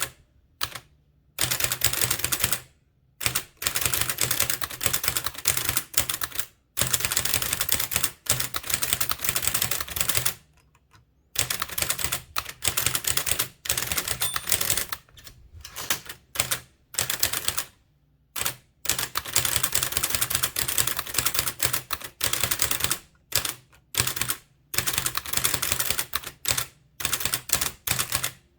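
Blickensderfer typewriter typed steadily at about four to six characters a second: each keystroke swings the type cylinder against the paper with a sharp clack, in runs broken by short pauses.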